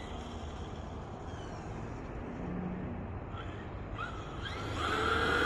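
Brushless electric motor of a Traxxas X-Maxx RC truck whining in short rising bursts as it accelerates, a few times, with a stronger whine building near the end, over a steady low rumble.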